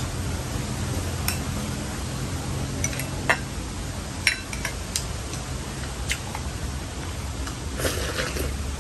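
Eating utensils clinking against bowls during a meal: scattered sharp clinks about a second apart, with a few close together near the end, over a steady low hum.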